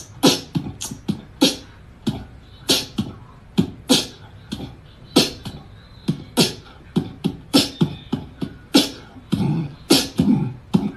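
Human beatboxing: a quick, uneven run of mouth-made kick, snare and hi-hat clicks, two or three a second, with a denser stretch of low vocal sounds near the end.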